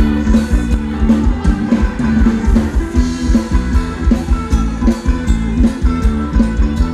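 Thai ramwong dance music from a live band: a drum kit keeps a steady beat under bass and guitar.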